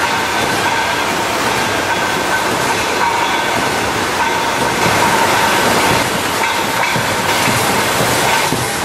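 Concrete roof tile plant machinery running: a steady, dense rumble and clatter with a faint steady whine, as from a belt conveyor and mixing equipment carrying concrete mix.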